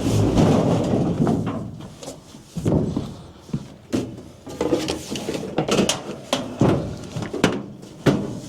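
Irregular knocks, bangs and scraping, a few strokes each second or so, as heavy objects are handled and shifted during demolition work.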